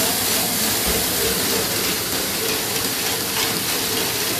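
Steady hiss and whir of silk reeling machinery running, with steam rising from the hot cocoon basins.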